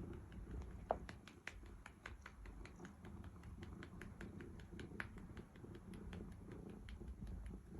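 Pet cat purring, with a run of small, sharp clicks over the purr, several a second at first and fewer later on.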